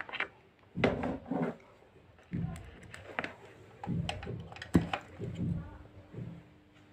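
Clicks and knocks of computer equipment being handled and connected, with a sharp click about five seconds in followed by a steady low hum.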